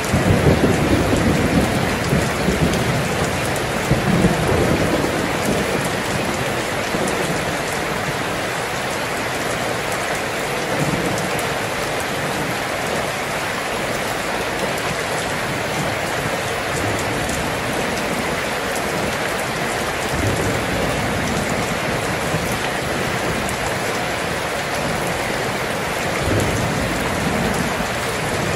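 Steady rain hiss, with low thunder rumbles in the first few seconds and fainter ones later on.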